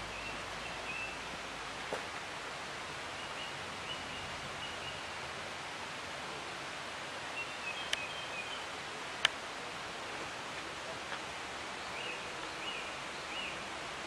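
Steady outdoor background hiss with small birds chirping in short high notes now and then, and a few sharp clicks, the loudest about nine seconds in.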